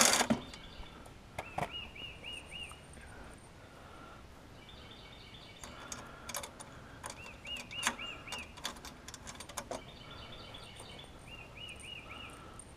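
A cordless power tool's run cuts off at the very start, leaving a bird singing a repeated phrase of four quick rising-and-falling notes, three times over, with other chirps around it. Scattered light clicks and taps come from metal parts and small hardware being handled.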